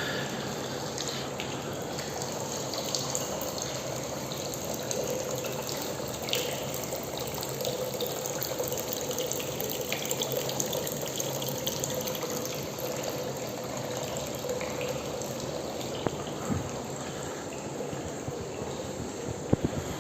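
Water running steadily, like a tap left on, with a faint steady hum under it and a few small clicks.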